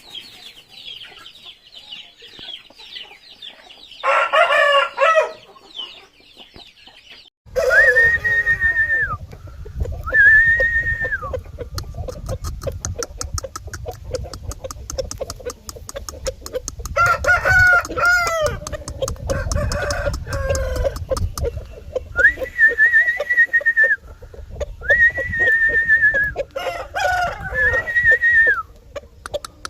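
Aseel chickens calling and clucking, with a rooster crowing. Rapid high peeping fills the first few seconds; from about seven seconds in, repeated calls of about a second each sound over a low rumble.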